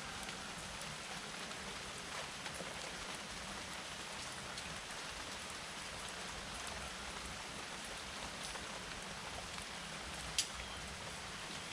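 Steady rain falling, with scattered drops tapping on a surface and one sharper, louder drip near the end.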